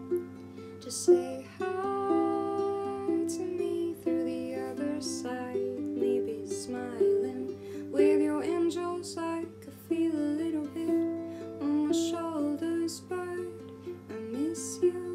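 Ukulele played and strummed, with a woman's voice singing along.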